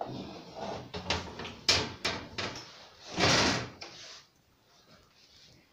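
Parts of a dismantled LED TV being handled and laid on a sofa: several knocks and clatters, then a longer sliding scrape about three seconds in, the loudest sound.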